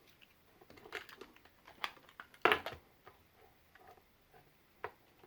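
Scattered light clicks and taps from a PS4 controller's plastic parts and battery being handled as the battery is swapped. The loudest click comes about two and a half seconds in.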